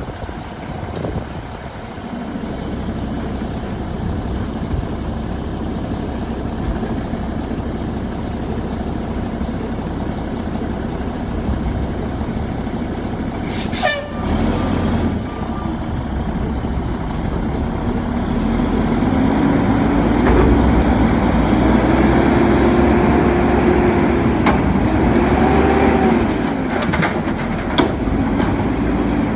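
Mack LE garbage truck with a Heil Half/Pack body running, its diesel engine revving up and down in several swells from about halfway on. A brief high squeal falls in pitch near the middle.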